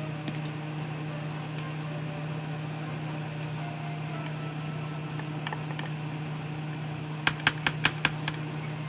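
A metal spoon tapping about five times in quick succession on the rim of a plastic food processor bowl, knocking off mayonnaise, near the end. A steady low hum runs underneath.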